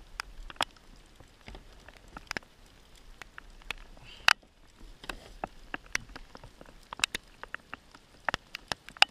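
Light rain pattering: scattered sharp drops tapping irregularly on the camera and the plastic kayak, more frequent in the last two seconds.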